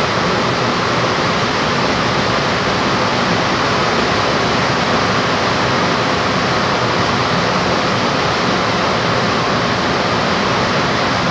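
Steady running noise heard inside a VAL 208 driverless rubber-tyred metro car as it travels through the tunnel. It is an even, unbroken rush with no clear tones or knocks.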